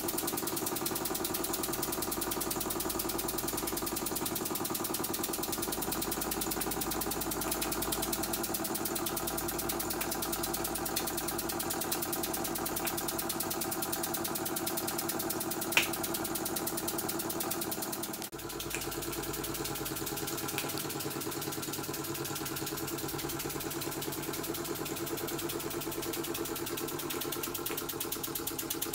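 KMV vertical toy steam engine running steadily on live steam under load, driving a belt-driven paddle fan: a fast, even mechanical beat with a steady hum. One sharp click about 16 seconds in.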